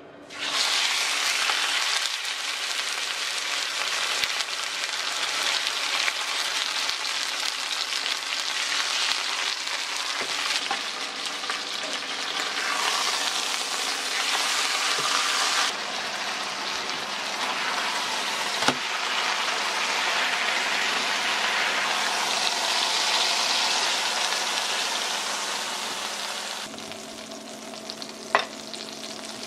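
Beef steak sizzling in hot oil in an iron frying pan: a sudden loud hiss as the meat goes into the pan about half a second in, then steady searing sizzle that eases somewhat near the end. A sharp tap or two stands out over the sizzle.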